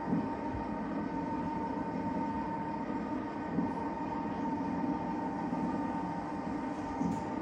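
Electric lifting motor of a Handi-Move ceiling-rail hoist running steadily as it lowers a person in a sling into a bathtub: a constant hum with a steady higher whine, and a light knock about three and a half seconds in.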